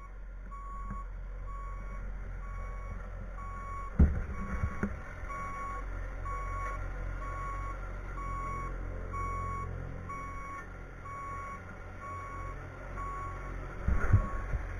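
Heavy equipment backup alarm beeping steadily about once a second over a running engine, with two loud knocks, about four seconds in and near the end.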